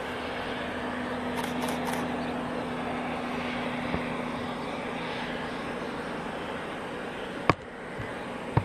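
Steam locomotive hauling a train of carriages, heard from afar as a steady rumble, with one sharp knock near the end.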